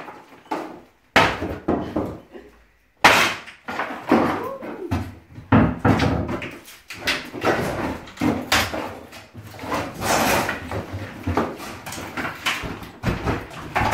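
Sledgehammer blows striking a wooden door frame, a string of sharp bangs. From about halfway in, dense clattering and knocking follow as a loosened frame post is wrenched out.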